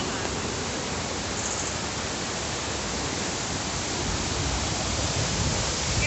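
Steady rush of water from a rocky stream and waterfall, an even hiss with no pauses. A deeper low rumble grows over the last two seconds.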